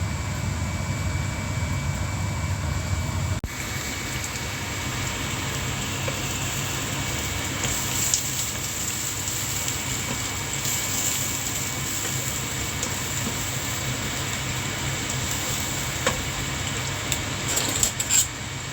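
Tofu frying in hot oil, a steady sizzle and crackle, with a few clinks of a utensil near the end. A low steady hum before a cut a few seconds in.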